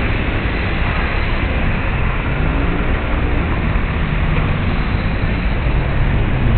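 Steady city street traffic noise, with cars driving past.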